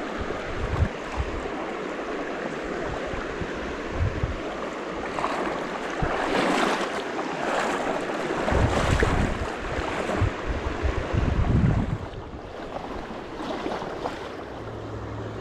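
Shallow trout stream running over rocks in a steady rush. Low buffeting on the microphone comes and goes, heaviest from about eight to twelve seconds in.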